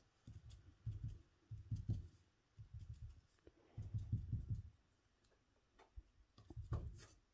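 Faint dull dabbing and rubbing of an ink-loaded foam sponge on foamiran petals on paper, in short bursts about once a second, with a few light clicks.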